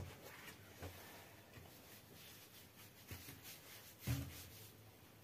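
Quiet room with faint scattered handling sounds as hands work in a large aluminium basin of liquid, and one brief louder sound about four seconds in.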